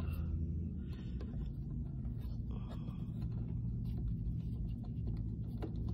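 A steady low hum, with a few faint clicks and rustles of small parts and wires being handled.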